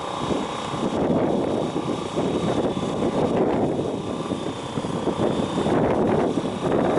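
Engines and exhausts of several classic cars running on a track, a steady mixed drone that swells and eases as the group approaches.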